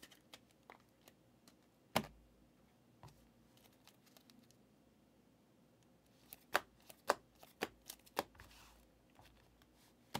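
Trading cards and hard clear plastic card cases being handled on a table. There are faint small ticks, one sharp plastic click about two seconds in, then a quick run of about six clicks and taps between six and eight seconds in.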